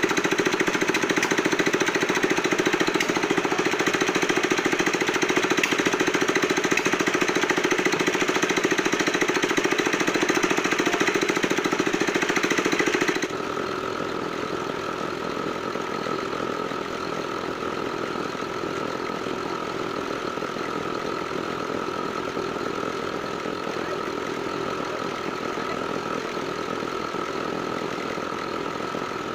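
Diesel engine of a mini concrete mixer running with a steady, rapid knock. About 13 seconds in the sound drops abruptly to a quieter, smoother steady run with a thin whine over it.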